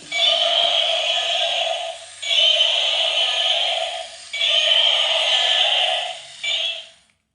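Electronic synthesized tones repeating in blocks of about two seconds, three full ones and a short fourth, then cutting off abruptly.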